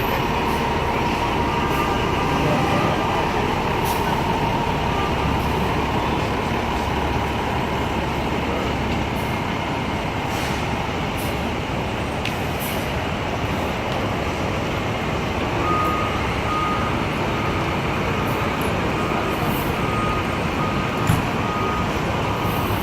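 Fire truck's diesel engine running steadily in city street noise. In the second half a reversing beeper sounds a series of short, evenly spaced beeps.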